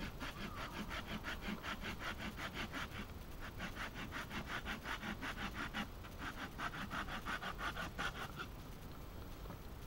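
Opinel No. 12 folding saw cutting through a wooden branch by hand, with fast back-and-forth strokes at about five or six a second; the saw cuts on both the push and the pull. The strokes come in three runs with brief pauses between them and stop shortly before the end.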